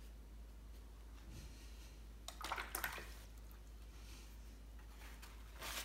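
Watercolour brush swished in a water jar, faint: a short wet rustle about two and a half seconds in and a briefer one near the end, over a low steady hum.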